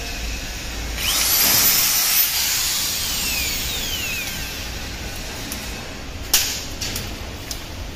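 Handheld power drill whining as it bores into the edge of an aluminium composite panel, spinning up about a second in and then winding down. Then a hand rivet gun is squeezed, with a sharp snap about six seconds in as the pop rivet's mandrel breaks off.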